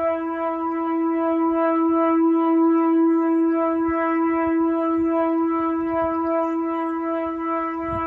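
Danish air raid siren sounding a single steady tone, held at one pitch without rising or falling.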